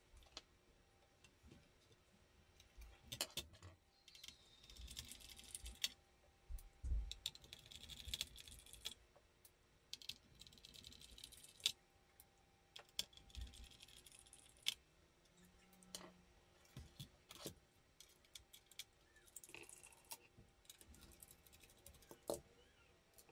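Light clicks, taps and short scraping passages of an ASUS RX 5700 XT graphics card and a small screwdriver being handled on a desk mat during a tear-down, with the screwdriver working a screw on the card's bracket near the end.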